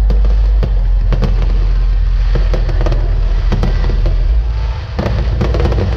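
Aerial fireworks display: shells bursting in a rapid, irregular series of sharp bangs and crackles over a continuous deep rumble.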